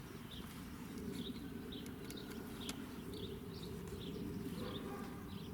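A small bird chirping over and over, short high chirps about twice a second, over a steady low outdoor hum, with a few faint clicks about two seconds in.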